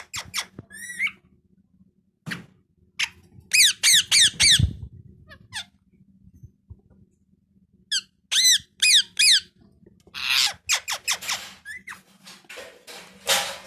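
Pet parrot calling: runs of short, sharp squawks that each slide down in pitch, in quick groups, then harsher, rougher screeches near the end.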